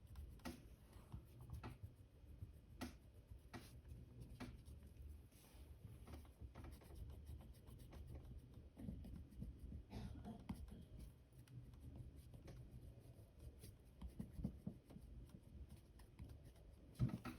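Faint scratching and rubbing of light green colour being applied to paper, with scattered small taps and clicks.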